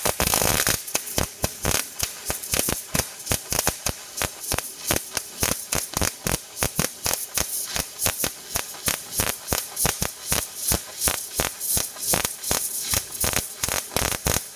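MIG welder arc crackling steadily while laying a seam weld on steel, a dense stream of sharp pops that swells and dips a few times a second.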